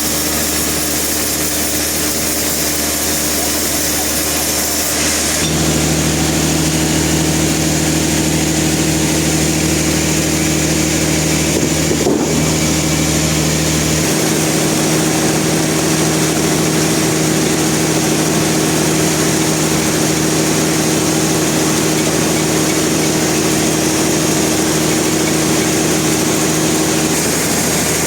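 Sawmill machinery running steadily, a constant engine-like drone with a steady hum. The hum changes pitch about five seconds in, and there is one short knock near the middle.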